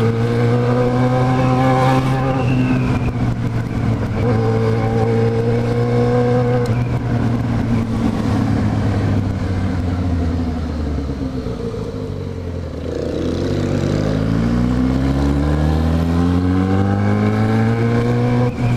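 Yamaha XJ6's 600 cc inline-four engine running under a rider: it holds a steady pitch, drops as the throttle is closed about eleven seconds in, then rises steadily as the bike accelerates.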